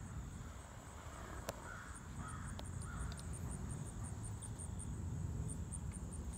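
Quiet outdoor background: a high, thin insect trill pulsing about four times a second over a low rumble, with a couple of faint clicks.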